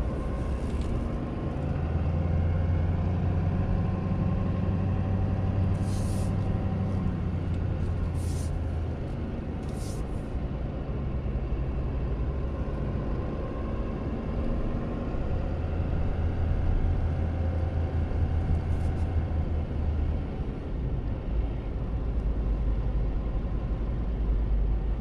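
Pickup truck engine and road noise heard from inside the cab while driving slowly, with a steady low engine hum that grows stronger in two stretches as the truck pulls ahead. A few brief high hisses come between about six and ten seconds in.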